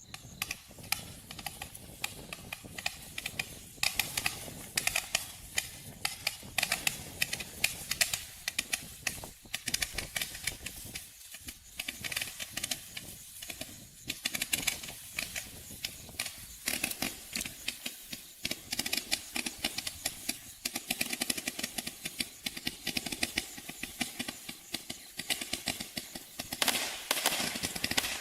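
Benstar 'War Games' firework cake firing: a dense, continuous run of small cracks and pops, growing louder near the end.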